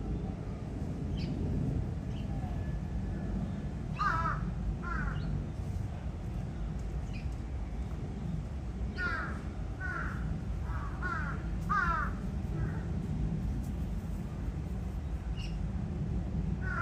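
Crows cawing: two caws, then after a pause a run of five caws in quick succession, over a steady low background rumble.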